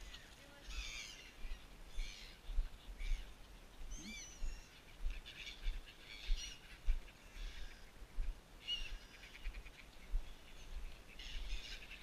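A flock of gulls calling over and over, short harsh squawks coming every second or so while they swoop for food.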